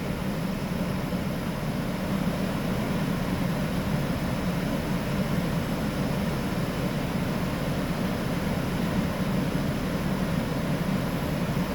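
Jaguar F-Type engine idling steadily with no revving, running with a misfire the mechanic calls strong, which the scan tool traces to cylinders 5 and 6 (number 6 misfiring continuously).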